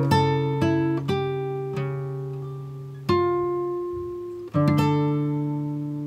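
Background music of a plucked acoustic guitar. Single notes and chords are picked and left to ring and fade, with new chords struck about three seconds in and again a second and a half later.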